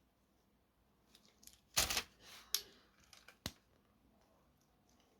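Hard resin fidget-spinner parts clicking and knocking together as the centre pieces are pushed into place. It is a handful of short, sharp clicks spread over a couple of seconds, the loudest about two seconds in.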